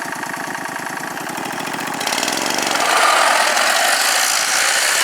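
Racing lawn mower engine running with a fast, even putter, then revving up and getting louder about two seconds in as the mower pulls away.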